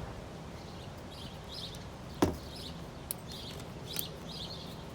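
Small birds chirping over and over, with one sharp knock about two seconds in and two lighter clicks after it, from hand work on the window frame's screws.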